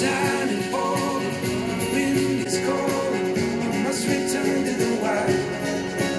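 A song with guitar and vocals played back through a pair of small studio monitor speakers and picked up by room microphones. The playback switches from the Mackie CR5-X to the IK Multimedia iLoud Micro, and the deep bass stays weak.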